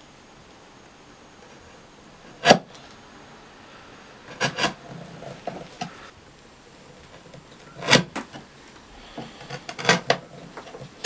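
Hand chisel paring a chamfer on the edge of a maple block: a few sharp snaps as the blade cuts through, the loudest about two and a half seconds in and others a little later, with faint ticks between.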